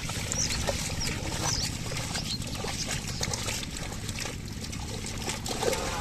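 A pair of bullocks wading through flooded paddy mud, dragging a wooden leveller: steady sloshing and splashing of mud and water, with trickling.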